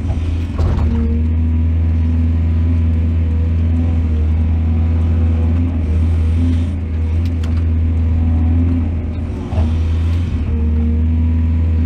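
Heavy diesel engine of earthmoving machinery running steadily under load, a deep continuous drone, with a few short rushes of noise about half a second in, around six to seven seconds and near ten seconds.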